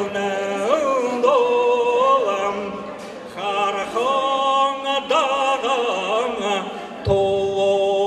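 An elderly man singing unaccompanied in Buryat, holding long notes and sliding between pitches, with short pauses between phrases.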